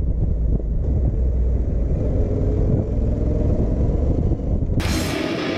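Yamaha XT1200Z Super Ténéré's parallel-twin engine running while riding, mixed with low wind rumble. Music cuts in suddenly near the end.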